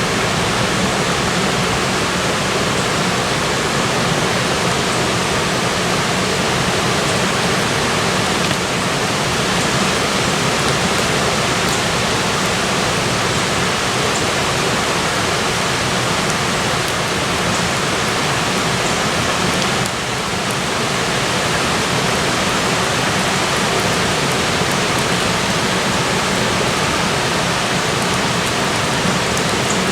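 Steady rain falling on water, an even hiss with a few faint drop ticks.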